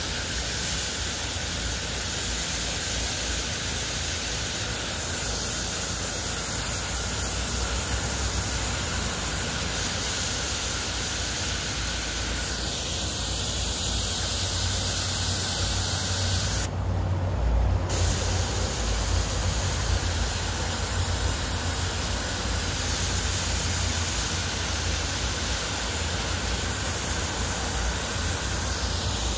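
Garden hose nozzle on its mist setting, spraying a fine water mist with a steady hiss. The hiss dips briefly a little past halfway.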